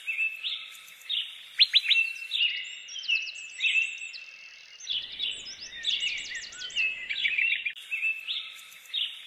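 Birds chirping and singing: a busy run of short, high calls and quick trills, with a faint low rumble for a couple of seconds in the middle.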